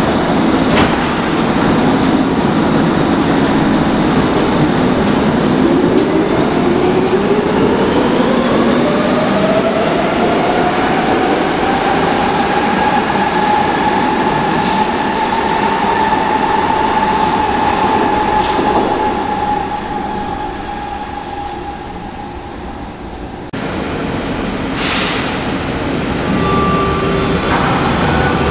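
Berlin U-Bahn GI-class ("Gisela") small-profile train pulling out of an underground station: rumbling wheels and a motor whine that rises in pitch as it accelerates, levels off, and fades as the train leaves. After a sudden change about 23 seconds in, quieter station ambience follows, with an S-Bahn train running in near the end.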